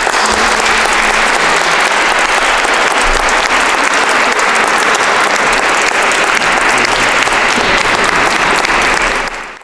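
Audience applauding steadily, cutting in at once and fading out at the very end.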